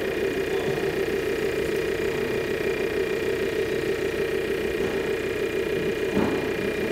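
Scale-model machinery running with a steady, engine-like hum and a faint high whine. One short knock about six seconds in.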